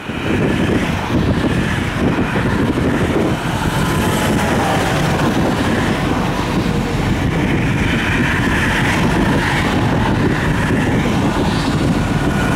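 Steady highway traffic passing at speed: cars and semi trucks, mostly tyre and engine noise. A tractor-trailer comes close near the end.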